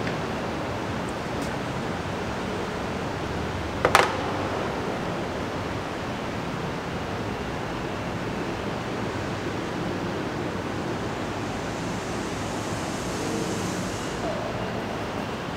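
Steady hiss of background noise, broken by one sharp click about four seconds in as parts of an AK-style gas blowback airsoft rifle are handled.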